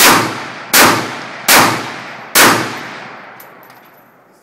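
Czech VZ-58 Sporter semi-automatic rifle in 7.62x39mm firing four shots in steady succession, about three quarters of a second apart, each shot trailing off in a long echo.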